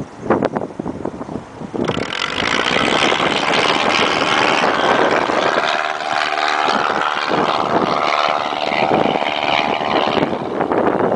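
Cessna light plane's piston engine and propeller passing close by, coming in loud about two seconds in, holding steady and dropping away near the end. Wind buffets the microphone at the start.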